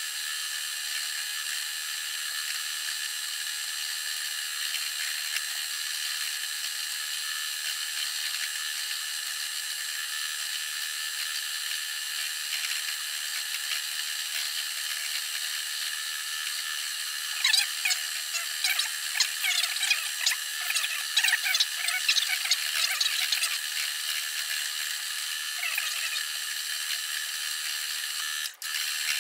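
Simplicity 12-needle felting machine running: a steady whir from its motor and needle bar punching wool felt. Partway through the second half comes a stretch of irregular scratchy rustling over the whir.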